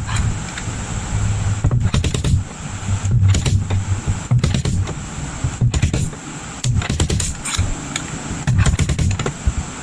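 Electric dent puller (stud-welder type) firing again and again: short bursts of low electrical buzz, each about half a second to a second long, broken up by sharp clicks.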